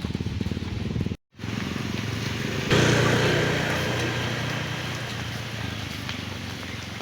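A small engine running with a steady rhythmic pulse, cut to silence for a moment about a second in. Near the middle a louder sustained low sound comes in suddenly and slowly fades.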